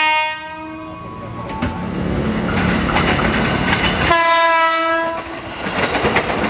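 KRL Commuter Line 205 series electric train (ex-JR East 205 series) sounding its horn: one blast cuts off just after the start and a second of about a second comes about four seconds in, with the train's running noise and wheel clatter between them.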